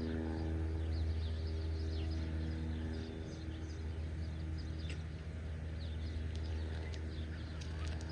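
Many small birds chirping in quick, high, short calls over a steady low motor hum. The hum grows fainter about three seconds in.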